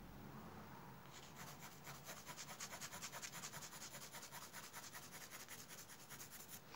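Faint graphite pencil shading on drawing paper: rapid back-and-forth scratchy strokes, several a second, starting about a second in.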